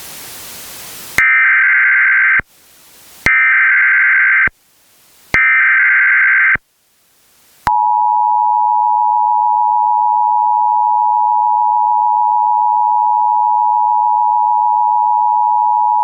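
Emergency Alert System alert relayed by an EASyPLUS unit: a brief burst of static, then the three SAME header data bursts (warbling digital tones, about a second each with short gaps), then the single steady alert tone near 1 kHz held for about eight seconds and cut off sharply. This is the attention signal that comes before the voice message of a Severe Thunderstorm Watch.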